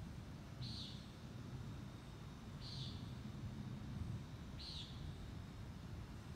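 A small animal's short, high chirp, repeated evenly about every two seconds, over a faint low rumble.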